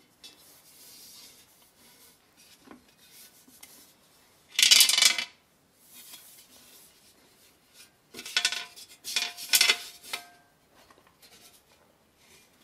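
Steel scraping and clattering as a polished steel bascinet and its small overlay plate are handled. There is one loud scrape about five seconds in and a cluster of scrapes about eight to ten seconds in, with the steel shell ringing briefly.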